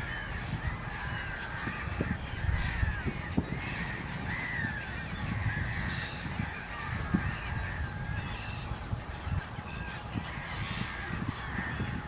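Many waterbirds calling at once, a constant chorus of short overlapping honking and chattering calls. A low, irregular rumble runs underneath.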